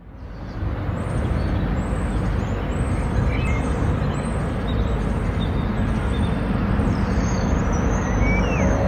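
Urban road-traffic ambience: a steady rumble of passing vehicles that fades in over the first second, with a few faint high chirps.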